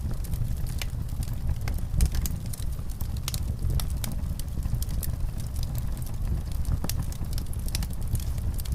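Wood fire in a fireplace crackling, with irregular sharp pops over a low steady rumble.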